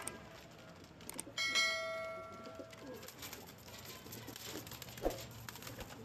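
Domestic pigeons cooing. About a second and a half in, a click and a ringing bell-like ding from a subscribe-button sound effect cut across it and fade away over about a second. A single sharp click follows near the end.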